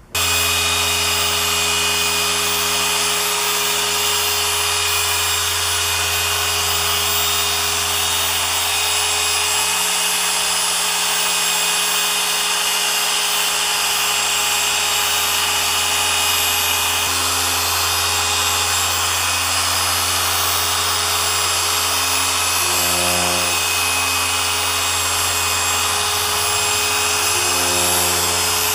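Electric machine polisher running steadily on car paint, its motor hum changing pitch slightly a few times.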